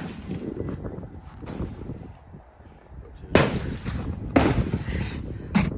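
Gunshots at an outdoor shooting range: three shots in the second half, about a second apart, each with a short ringing tail.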